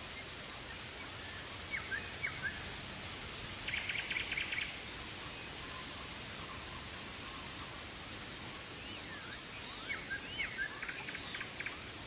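Steady rain falling, with birds calling through it: short rising and falling whistles, and a rapid trill about four seconds in and again near the end.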